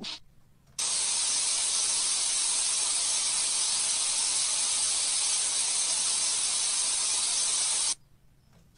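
A steady, high hiss of static-like noise that starts a little under a second in and cuts off suddenly about a second before the end.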